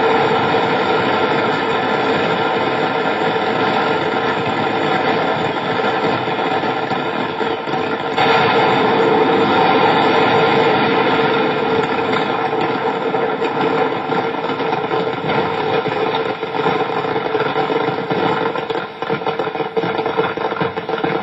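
Continuous loud roar of a massive fireworks depot explosion, heavy and noisy. It jumps louder about eight seconds in, and sharp crackling comes through near the end.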